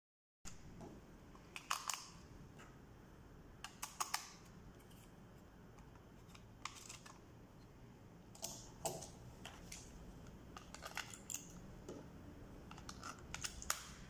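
Scattered sharp plastic clicks and knocks, some in quick pairs and triples, from handling a toy remote-control car and its remote while opening the battery compartments.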